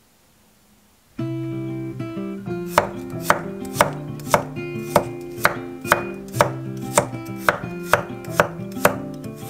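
Kitchen knife slicing garlic cloves on an end-grain wooden cutting board: a steady run of sharp knocks about twice a second as the blade hits the board. Soft guitar background music comes in about a second in and plays underneath.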